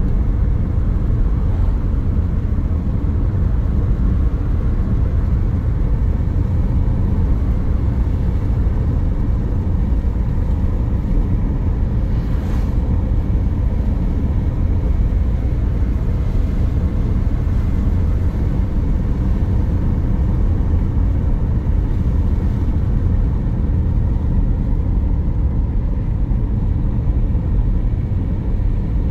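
A car driving at a steady speed: a constant low rumble of engine, tyre and road noise.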